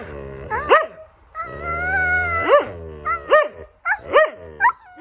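Husky yowling and 'talking', a series of short woo calls that rise and fall in pitch. About a second and a half in, one longer call is drawn out.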